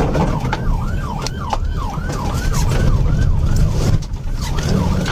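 Police car siren on a fast yelp, rising and falling about three times a second, over the steady rumble of the cruiser's engine and road noise during a pursuit.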